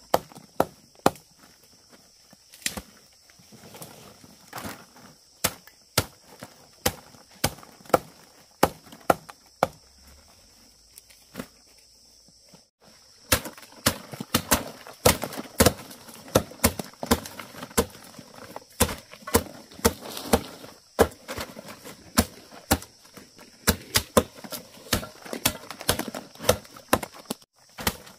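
Repeated chopping strikes, about one or two a second, coming faster and with rustling between them from about halfway through.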